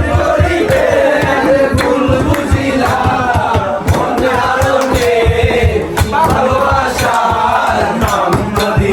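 Background music: a song with voices singing or chanting over a steady, driving beat.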